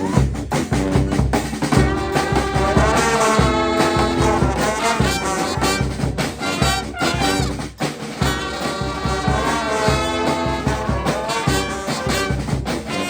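Live street brass band playing: trumpets and trombones in a busy, jazzy tune over a steady drum beat.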